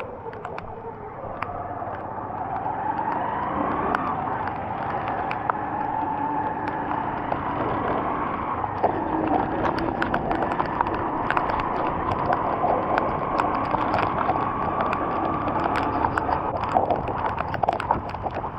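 Road traffic in rain: vehicle engines running, their pitch slowly rising and falling, with scattered sharp taps of raindrops that come thicker near the end.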